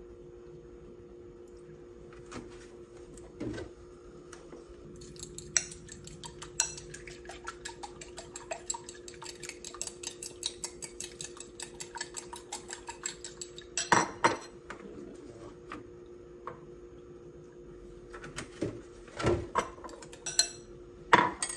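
Egg and milk being beaten in a glass bowl: a utensil clinks rapidly against the glass from about five seconds in, with a few louder knocks on the bowl later on. A steady low hum runs underneath.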